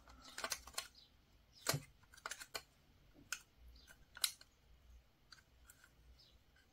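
Faint, irregular clicks and light scrapes of hard plastic as the white housing and circuit board of an electronic radiator thermostat are worked by hand, prying at the board to free it. Two of the clicks, one a little before two seconds in and one just after four, stand out.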